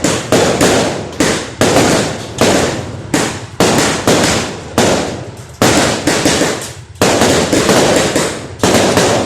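Fireworks going off in quick, irregular succession, about two loud bangs a second. Each bang trails off in a fading crackling hiss before the next one.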